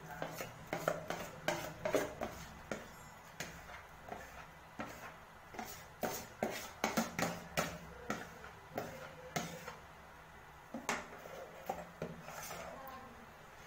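A spoon scraping and knocking inside a plastic mixing bowl as cake batter is scraped out into a metal cake pan: a run of irregular clicks and scrapes that thins out near the end.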